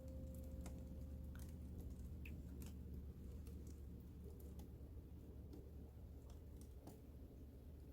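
Faint, sparse light clicks and taps of plastic food-storage containers and freezer items being handled, over a low steady hum. A held note of background music fades out in the first two seconds.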